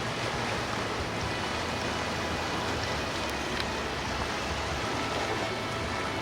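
Steady rush of water with the low hum of boat engines underneath.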